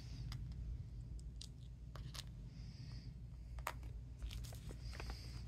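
Small plastic fruit charms tapped and clicked onto the lids of plastic slime tubs: scattered sharp light clicks, with a few short soft rustles of paper, over a low steady background hum.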